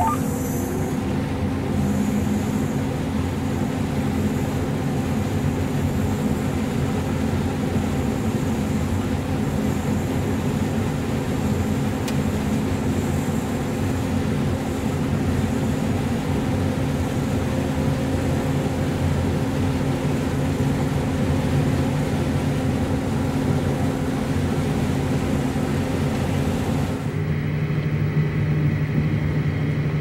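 Steady drone of a combine running and harvesting corn, heard from inside the cab. About three seconds before the end it cuts to a different, steady lower hum from another vehicle's cab.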